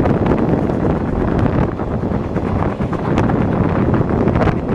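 Heavy wind buffeting on the microphone at the open carriage window of a moving steam train, over the train's running noise, with a few sharp clicks.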